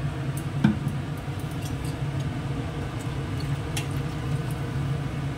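A steady low kitchen hum, with a single light metal knock about half a second in as a steel bowl is tipped against the iron kadai to pour in cornflour slurry and rinse water.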